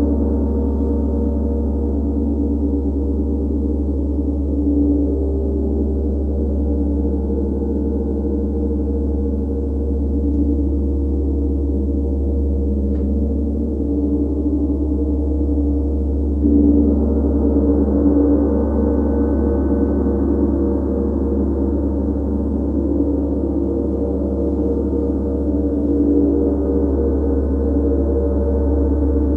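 Large tam-tam gong played continuously with a soft padded mallet: a dense, sustained wash of many overlapping tones over a deep low hum, never dying away. About sixteen seconds in it swells louder and brighter.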